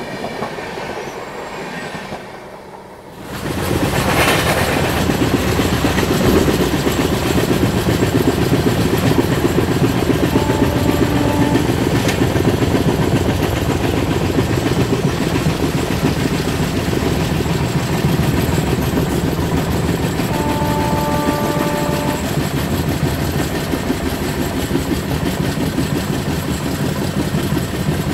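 Konark Express running along the track: a steady rumble and clatter of wheels on rails that swells sharply about three seconds in and stays loud. A train horn sounds briefly twice, as a short chord about a third and two thirds of the way through.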